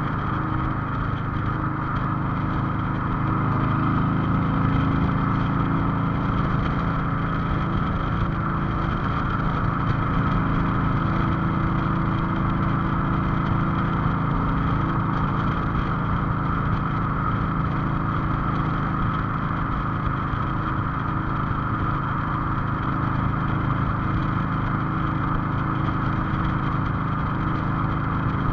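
Cruiser motorcycle engine running steadily at road speed, heard from the rider's seat.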